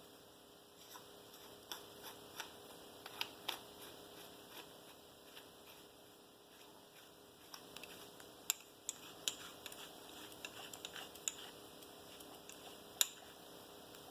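Faint, irregular small clicks and ticks of lightsaber hilt parts being handled and screwed together as the emitter neck goes back onto the hilt, with the sharpest click about thirteen seconds in.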